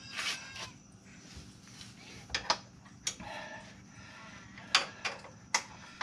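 Irregular sharp metallic clicks and clinks of a wrench working the bolts at the top of a Mercedes ML W163's rear shock absorber, about half a dozen over a few seconds.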